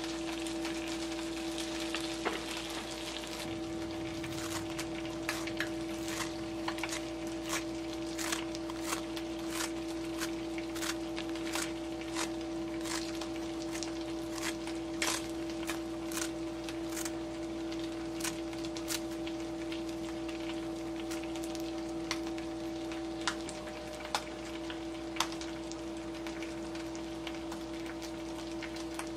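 Kitchen scissors snipping a sheet of nori into strips, sharp snips about twice a second that thin out in the second half, over a steady hum.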